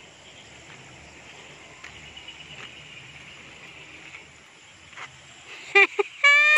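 Insects in the surrounding vegetation keep up a steady high drone that fades about four seconds in. Near the end a woman bursts into laughter.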